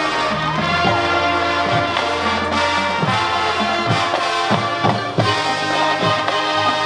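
Marching band playing a Motown arrangement: brass sustaining chords over drumline hits.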